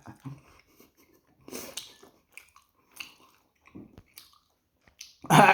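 A person chewing and biting into dumplings with soft, scattered mouth noises, then, at the end, a loud, involuntary voiced noise of enjoyment from the eater.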